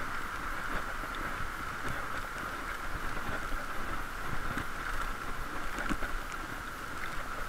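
Steady, muffled rush of wind and road noise from a bicycle ride, heard through a waterproof camera case, with a few faint ticks scattered through it.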